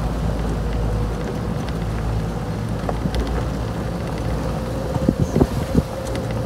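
Vehicle engine running steadily as it drives along, with wind noise on the microphone and a cluster of knocks about five seconds in.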